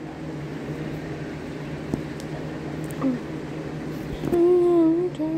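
Electric fan running, a steady whirring hum in a small room.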